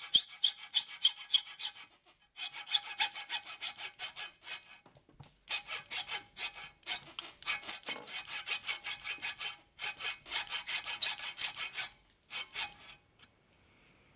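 Hacksaw cutting through a rolled sheet-brass hinge barrel clamped in a vise, with quick back-and-forth strokes in several runs and brief pauses, stopping shortly before the end. The cuts are the slots that form the hinge's teeth.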